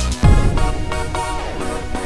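Background music: an electronic beat with a deep kick drum just after the start, followed by pitched synth notes.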